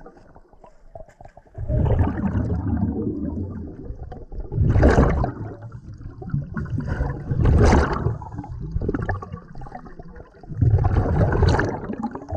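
Underwater, scuba regulator exhaust bubbles rush past the camera in loud surges every two to three seconds, each one a diver's exhalation, with quieter gurgling water in between.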